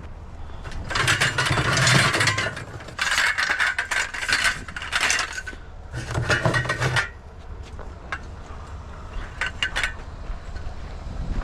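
Loose scrap metal clattering and rattling as it is handled, in three loud spells, then a few lighter clinks near the end; loud enough to be called waking up the neighbourhood.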